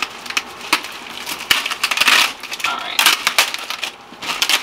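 Plastic packaging crinkling and rustling as it is pulled open by hand, in irregular crackles that are loudest around the middle.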